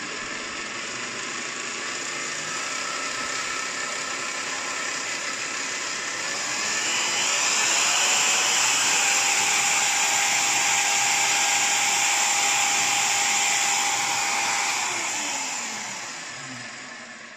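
Parkside PTBM 710 A1 bench drill press running in first gear. About six seconds in its speed is turned up and the whine rises and grows louder. It holds steady at top speed, about 900 rpm, then winds down and fades near the end.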